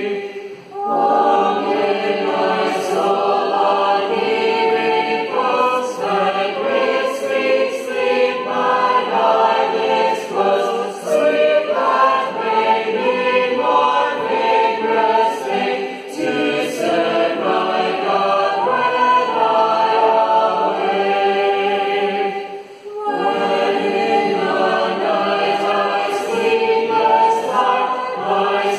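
A large group of voices singing a hymn together, unaccompanied, with brief breaks between phrases near the start and about 23 seconds in.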